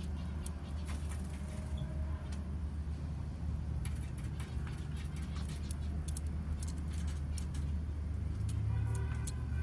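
A steady low rumble, with many brief, sharp high chirps and ticks from small birds scattered through it.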